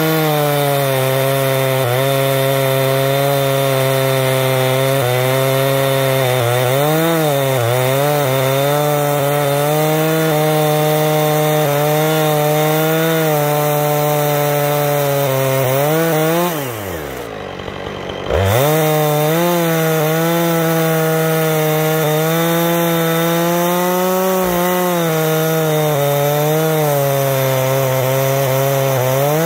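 Husqvarna 460 Rancher two-stroke chainsaw running near full throttle in an Alaskan chainsaw mill, ripping a cedar log lengthwise into a slab, its engine pitch wavering with the load. About 17 seconds in the engine speed falls away for nearly two seconds, then picks back up to full cutting speed.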